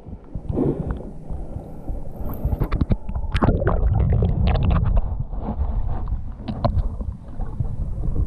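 Muffled underwater sound through a submerged camera: a low rumbling of water moving around it, loudest around the middle, with scattered short clicks and crackles.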